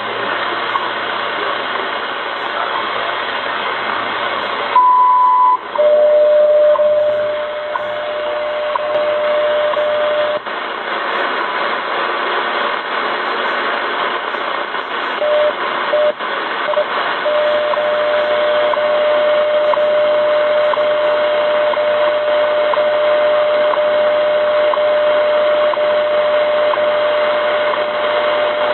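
Malahit-clone SDR receiver playing the WWV time-signal station in AM through its speaker, with shortwave static hiss. About five seconds in a 1 kHz minute tone sounds for under a second, then a steady 600 Hz tone runs over the static. The tone drops out for a few seconds while the receiver is retuned from 10 MHz to 20 MHz.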